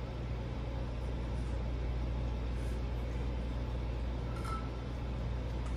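Dreo Nomad One tower fan running on its lowest speed, a steady, quiet rush of air with a low hum.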